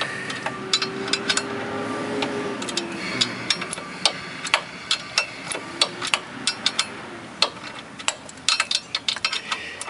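Ratchet wrench clicking in short, irregular runs as a brake caliper bracket bolt is backed out, with metal tool clinks against the bracket.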